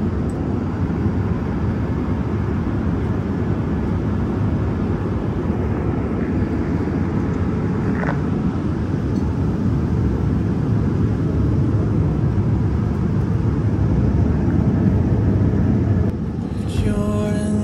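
Steady low rumble of an airliner cabin in flight, the engine and airflow noise heard from a passenger seat. Music comes in near the end.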